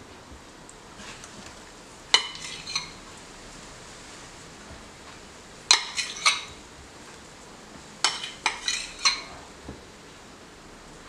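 Metal spoon clinking against a glass bowl of melted white chocolate. Three short bursts of a few sharp, ringing clinks each come about two seconds in, near the middle and near the end.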